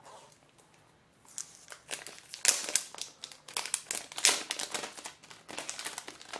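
Protective plastic film crinkling and crackling as it is pulled off a tablet by hand. The crackles start about a second in and come in an irregular run, loudest in the middle.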